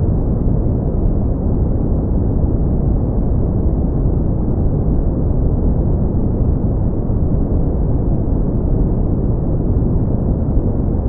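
Steady brown noise: a deep, even rumbling hiss, heaviest in the bass and fading out in the treble, unchanging throughout.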